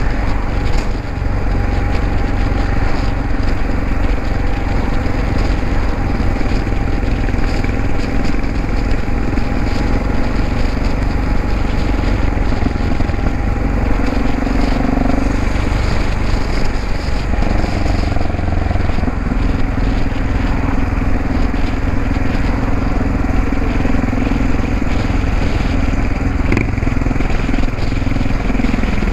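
Yamaha XT660X single-cylinder four-stroke engine and exhaust running steadily at road speed, heard from the rider's seat with wind rush. The engine note shifts briefly about halfway through.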